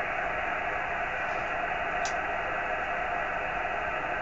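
Steady hiss from an amateur radio receiver listening on a satellite downlink, with no station heard through it; one faint click about two seconds in.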